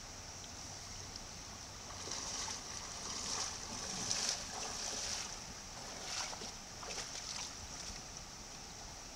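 Water sloshing and splashing as a person wades through a shallow, rocky stream, loudest from about two to seven and a half seconds in, over the stream's steady rush.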